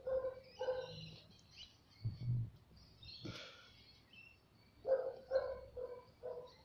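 Short animal calls at one steady pitch come in two runs, about three at the start and a quicker run of four or five in the last two seconds. Faint bird chirps sound above them.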